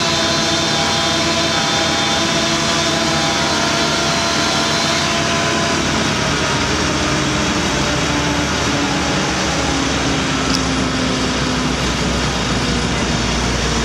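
Engine-driven tree-trimming machinery running steadily: a continuous mechanical drone whose pitch shifts a few times.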